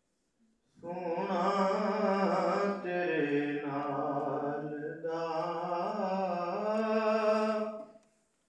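A man singing a naat, a devotional poem in praise of the Prophet Muhammad, without accompaniment. The voice begins about a second in and runs in three long, held melodic phrases.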